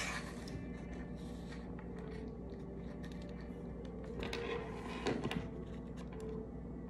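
A cardboard phone-case box being handled, with a few soft rustles and light taps, the most marked about four to five seconds in. Under it runs a steady low room hum.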